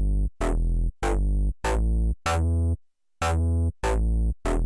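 Ingo1 software synthesizer playing its 'Bass – Hard Star' preset: a run of short, deep bass notes, about one and a half a second, each opening with a sharp bright click. The notes stop briefly a little past halfway, then carry on.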